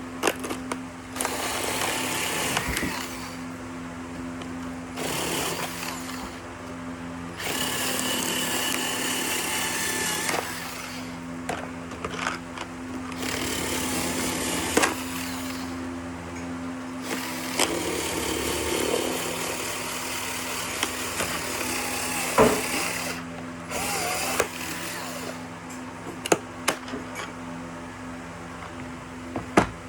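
Ryobi cordless power cutter running in about six separate bursts of one to five seconds each, cutting open the packaging of a screwdriver bit set, with sharp handling clicks between bursts near the end.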